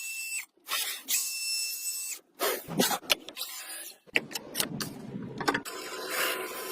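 Small machine whining at a steady high pitch in two short, abruptly cut bursts, followed by a string of sharp clicks and knocks over a rough noise.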